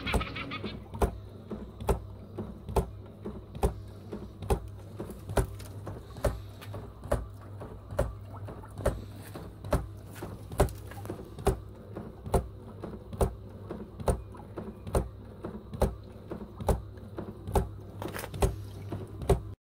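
Homemade animatronic zombie prop running: its motor-driven mechanism knocks regularly, a little more than once a second, over a steady low hum.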